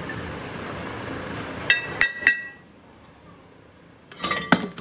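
Sharp metallic clinks, three in quick succession about two seconds in, each ringing briefly, then a few more clanks near the end. They come from a machined cast-iron truck brake drum being knocked about and freed from the lathe's chuck.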